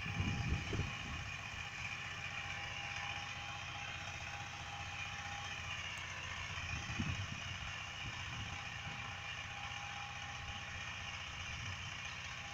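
A power weeder's 9 HP diesel engine running steadily, with a few low thumps in the first second and again around seven seconds in.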